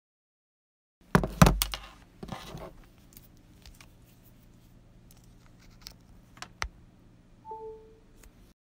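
Handling noises: a few loud knocks about a second in, then a short rustle and scattered small clicks over a faint steady hum, with a brief tone near the end.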